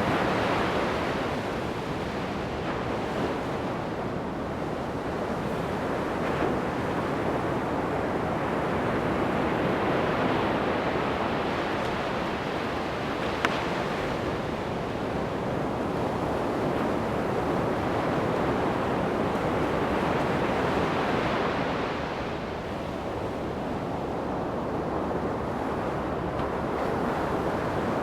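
Surf breaking on a sandy beach: a continuous wash of waves that swells and eases about every ten seconds. A single short click about halfway through.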